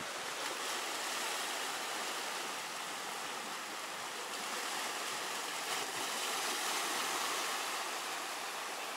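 Sea surf washing over rocks, a steady rushing hiss that swells a little past the middle.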